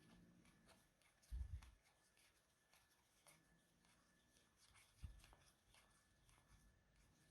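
Near silence with faint handling of Pokémon trading cards: soft rustles and small clicks as cards are sorted, with two soft low thumps about a second and a half in and about five seconds in.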